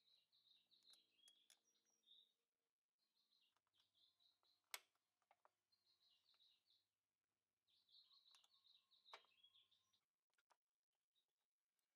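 Near silence with faint bird chirps in the background, coming in short runs. A sharp click about five seconds in and a smaller one about nine seconds in, small metal parts of the drum-brake panel being handled.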